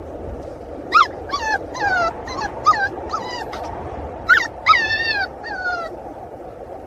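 A puppy whimpering and yelping: about ten short, high-pitched cries, each falling in pitch, over a steady background hiss.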